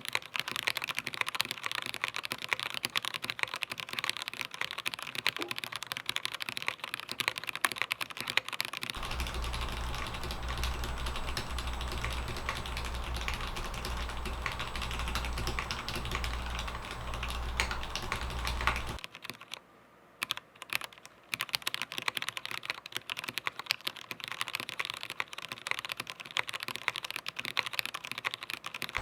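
Rapid typing on a Meletrix Zoom TKL Dyna mechanical keyboard, dense key clacks with a brief pause about two-thirds of the way through. A steady low hum sits under the typing for about ten seconds in the middle.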